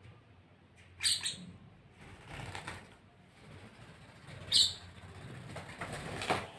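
Pet birds giving two short, sharp high-pitched chirps, about a second in and again past the middle, with soft scuffling between them.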